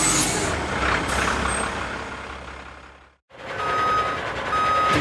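Garbage truck engine rumbling and fading steadily away over about three seconds. After a brief silent gap, a truck's reversing alarm starts beeping at an even pace, two beeps near the end, with the engine running under it as the truck backs up.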